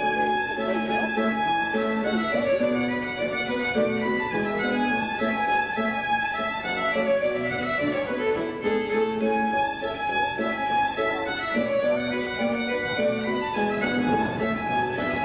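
Scottish fiddle reel: a fiddle playing a fast, continuous run of notes.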